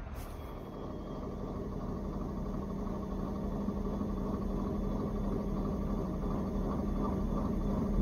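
Farm tractor engine running steadily under load, a continuous drone with a held low hum that grows slowly a little louder.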